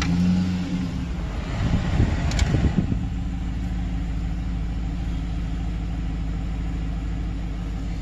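Chevy Silverado's 5.3 V8, fitted with a cam and long-tube headers, starting up on the first start after a collapsed valve lifter was replaced. It runs unevenly for about three seconds, then settles into a steady idle without a lifter tick.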